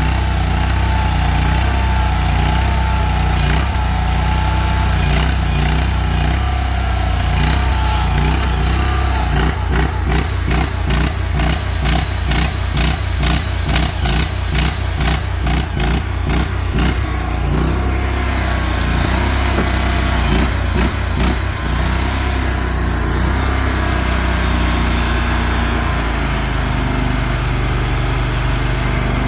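An engine running steadily. Through the middle stretch it beats in a regular pulse of about three a second.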